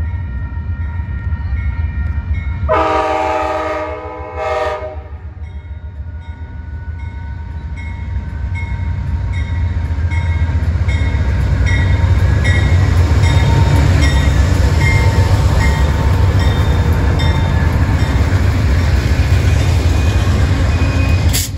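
Amtrak GE Genesis P42DC locomotive's five-chime Nathan Airchime horn (a K5LA, or possibly a rarer K5L) sounding one long blast a few seconds in, then a short one. The locomotives then pass close by, and their diesel rumble builds over several seconds and stays loud.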